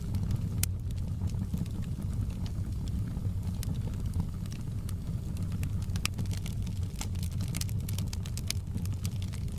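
Wood fire in a fireplace crackling: a steady low rumble of burning, with frequent sharp pops and snaps that come more thickly in the second half.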